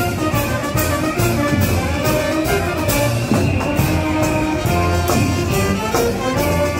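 A live street band playing a tune over a steady beat.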